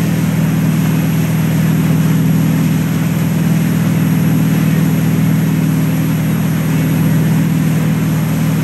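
Inboard wake boat engine running steadily at towing speed, a constant low drone, over the rush of the churning wake water.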